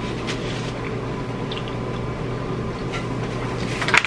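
Steady low hum and hiss of room noise, with a few faint clicks and a sharper tap just before the end.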